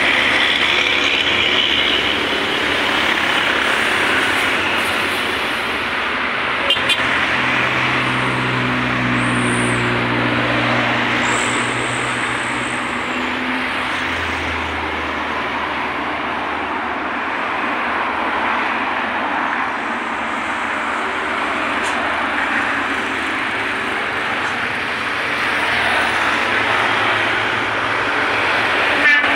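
Steady road traffic noise of cars and motorcycles passing on a highway, with a heavier vehicle's low engine drone swelling for a few seconds near the middle.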